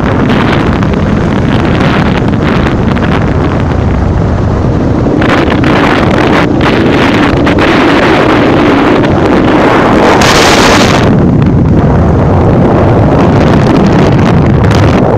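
Loud wind buffeting the microphone of a camera held out of a moving car's window, mixed with the rush of road noise, with a brief hissing surge about ten seconds in.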